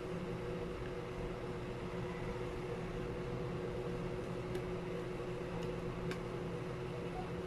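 Steady machine hum with a constant hiss and a couple of steady tones, unchanging throughout, with a few faint clicks about halfway through.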